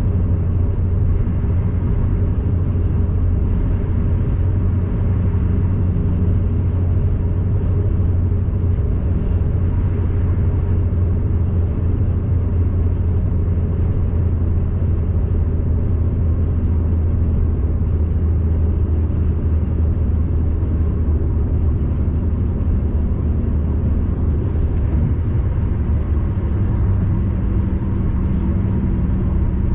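Car cruising at expressway speed, heard inside the cabin: a steady low rumble of road and engine noise.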